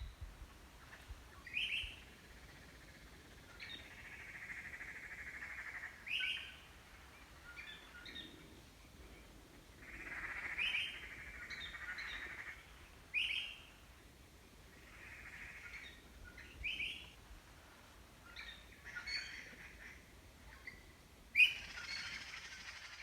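Birds calling: sharp chirps every couple of seconds, with longer continuous stretches of song between them.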